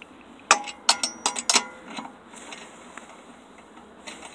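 Metal clicks and clinks of a four-way lug wrench on the wheel's lug nuts as the loosened nuts are spun off, a quick run of sharp clicks in the first second and a half, then only faint handling noise.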